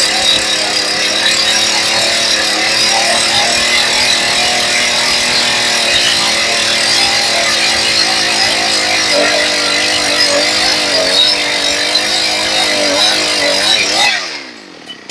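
Holzfforma G288 90cc-class two-stroke chainsaw running steadily under load as it cuts through a hardwood log, then coming off the throttle near the end, its pitch dropping as the revs fall. The saw is untuned and running rich, which the owner says makes it sound terrible.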